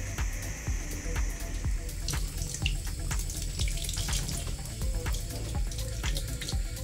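Tap water running onto a brass workpiece while it is scrubbed by hand with an abrasive pad, with small rubbing clicks. For about the first two seconds, before the water starts, there is a steady hiss from the soldering torch.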